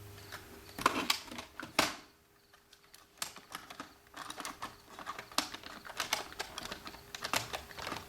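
Irregular plastic clicks and rattles of a VHS-C cassette being handled and fitted into a motorized VHS cassette adapter, with two sharp snaps about a second in and a run of smaller clicks in the second half.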